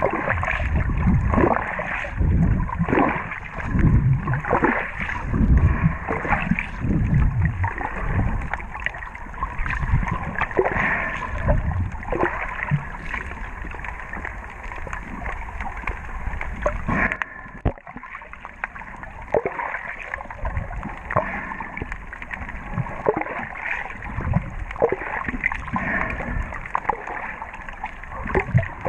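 Muffled sloshing and surging of water around a submerged camera, with irregular swells and soft knocks. The heaviest surges come in the first third, and it settles quieter past the middle.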